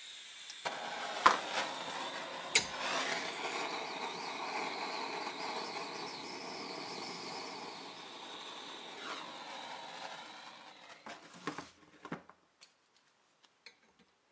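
Hose-fed gas torch burning with a steady hiss for about ten seconds, heating the cast-iron vise jaw. Two sharp clicks sound in the first few seconds. The flame stops near the end, followed by a few light metal clicks.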